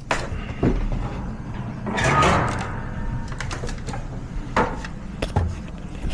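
Handling noises: several sharp knocks and clunks, with a longer scraping rustle about two seconds in.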